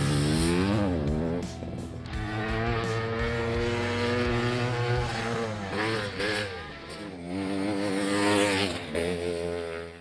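Honda CR500 500 cc two-stroke dirt bike engine revving hard as the bike is ridden, its pitch rising and falling repeatedly with the throttle.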